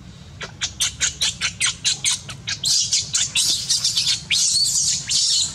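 Baby monkey screaming: a rapid series of short, high squeals that fall in pitch, about four or five a second, starting about half a second in and merging into longer, shriller screeches about halfway through.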